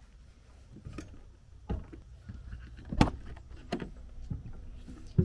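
Knocks and clatter from a truck camper's door and entry as someone opens it and climbs inside, about half a dozen sharp knocks with the loudest one about three seconds in.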